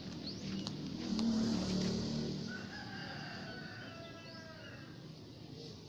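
A rooster crowing once, a drawn-out crow from about two and a half seconds in. It follows a louder low hum in the first couple of seconds.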